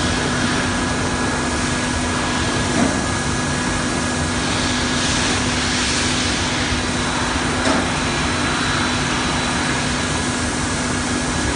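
Industrial tunnel washer for stainless steel sinks running: a steady machine drone with a constant hum and hiss, with a couple of light knocks in it.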